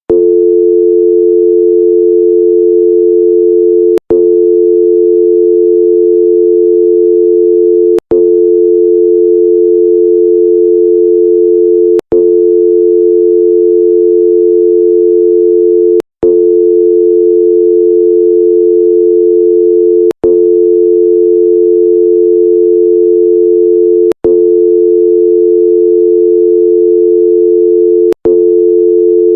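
American landline telephone dial tone: a steady hum of two blended tones, 350 Hz and 440 Hz. It is broken by a very short gap with a click about every four seconds.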